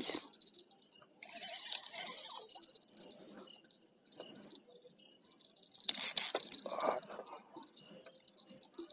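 Night insects, crickets, chirping in a steady high-pitched drone, with two bursts of rustling handling noise, one at about a second and a half in and a shorter one about six seconds in.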